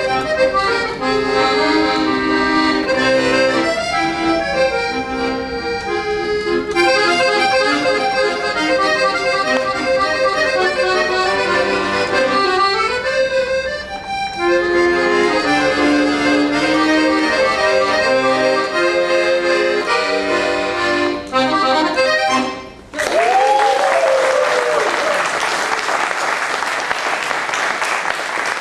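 A solo piano accordion plays a melody over chords, with short breaks in the phrasing, and stops about 23 seconds in. An audience then breaks into applause.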